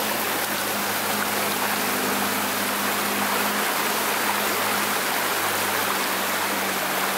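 Muddy water rushing and splashing steadily on a flooded 4WD track as a four-wheel drive drives through it, with a steady low engine drone underneath.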